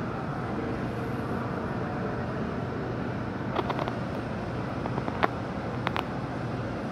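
Boeing 737 MAX 8's CFM LEAP-1B jet engines at takeoff thrust, a steady, muffled rumble heard through terminal glass. Several sharp clicks come in the second half.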